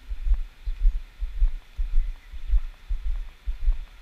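Dull low thuds of walking footsteps, picked up through a body-carried GoPro action camera, about two a second in a steady rhythm.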